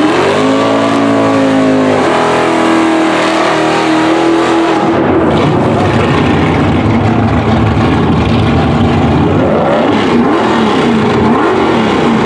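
A drag car's engine revved up and held at high revs during a burnout while its rear tyres spin. After about five seconds the steady tone gives way to a rougher noise, and near the end the engine is blipped up and down several times.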